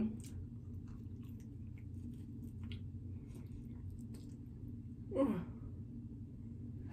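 Faint wet chewing and mouth clicks of someone eating pizza, with one short vocal sound falling in pitch about five seconds in.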